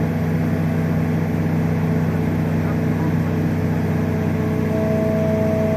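A crane or boom engine running steadily. A higher steady whine joins about four to five seconds in, as the hoist lifts the concrete panel.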